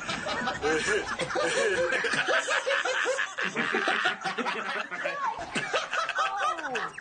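A group of four men laughing together, snickering and chuckling over one another without pause.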